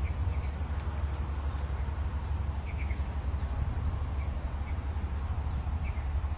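Wind rumbling steadily on the microphone, with small birds giving short, high chirps in twos and threes every second or two.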